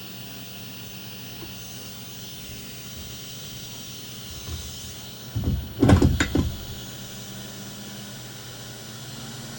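Steady low hum and hiss of bench equipment, broken about five and a half seconds in by a brief flurry of clunks and handling noise lasting about a second.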